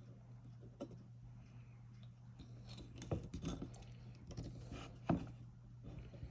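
Faint scattered clicks and taps of small metal gun parts and tools being handled while a roll pin is started in an AR-15 lower receiver, the sharpest a single snap about five seconds in, over a low steady hum.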